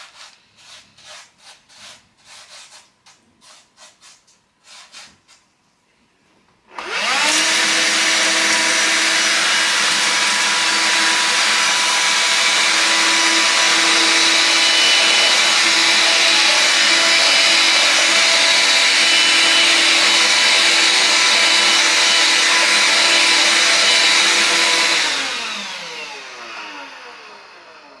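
A gloved hand scrapes and spreads dirt across a wooden board in short rubbing strokes. About seven seconds in, the AEG HX6-30STM cordless handheld vacuum cleaner switches on and runs steadily while sucking up the dirt, then is switched off near the end and winds down with a falling whine.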